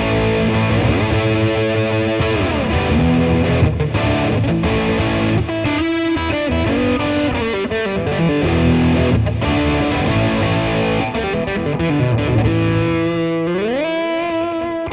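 Overdriven electric guitar playing a phrase of single notes and chords. About 13 s in it slides up into a held, ringing note.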